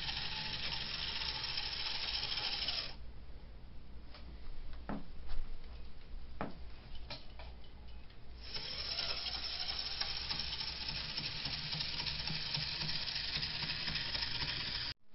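Bachmann 2-8-0 model steam locomotive running on the track, its motor and gears making a steady rattling whir. About three seconds in it cuts out, leaving a few light clicks, and it starts running again some five seconds later. The stalling is typical of dirty track contact, which the owner hopes a good cleanup will cure.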